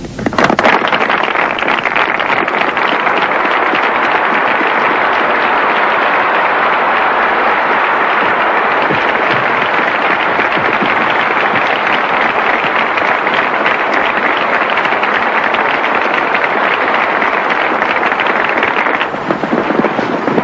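A cinema audience applauding as the film ends: a dense, steady clapping that starts abruptly and thins a little near the end.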